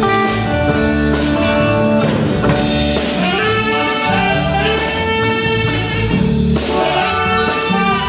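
Tenor saxophone playing a solo of held, changing notes over a live band's drums and electric guitars.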